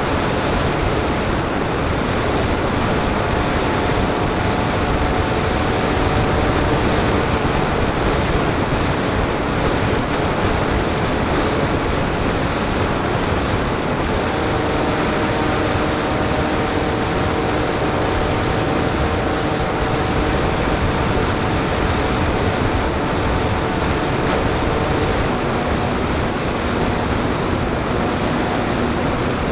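Wind rushing over the onboard camera of a Bixler 3 RC airplane in flight, with its electric pusher motor and propeller humming underneath and a thin steady high whine. The motor hum shifts pitch about halfway through.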